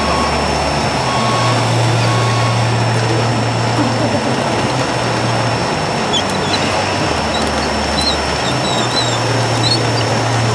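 Low engine drone from an RC scale model's sound module, jumping between two pitches every second or two, over a steady din of crowd voices.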